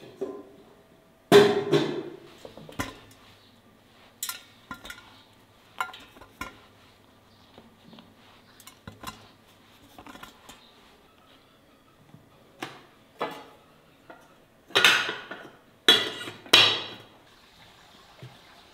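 Dishes and cutlery clinking and clattering as they are handled, in irregular knocks; the loudest come about a second in and as three clatters near the end.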